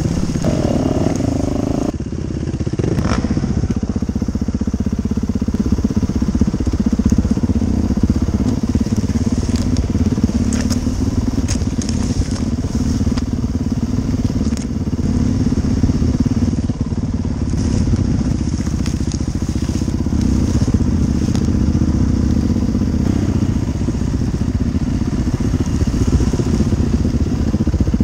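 Dirt bike engine running steadily while being ridden along a trail, heard close up from the rider's helmet. Brush and sticks crackle and snap against the bike now and then.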